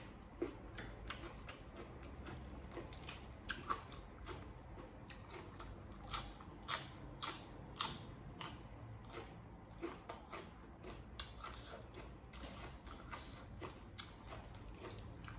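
Close-up chewing of crunchy food, a run of irregular crisp crunches and mouth clicks, loudest in the middle.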